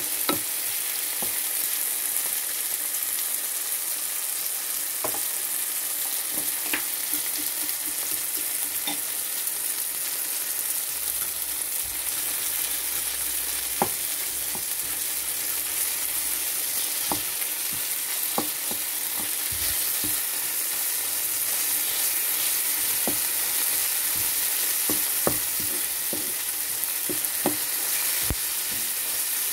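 Chopped onion, tomato and green onion sizzling in oil in a frying pan, a steady hiss, while a wooden spatula stirs them, giving scattered, irregular taps and scrapes against the pan.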